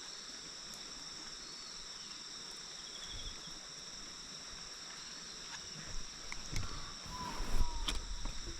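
Steady high-pitched chorus of insects trilling, with footsteps and knocks starting about six seconds in.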